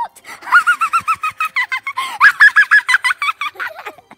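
A girl laughing hard in high-pitched, rapid giggles, several a second, going higher about two seconds in.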